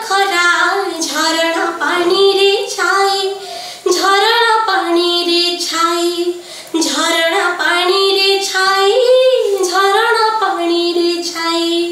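A woman singing a Sambalpuri song solo, in phrases of held, wavering notes with short breaks for breath between them.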